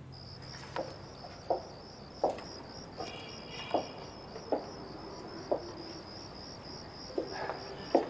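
Crickets chirring in a steady, high, finely pulsing trill at night, with footsteps coming at an even walking pace, about one step every three-quarters of a second.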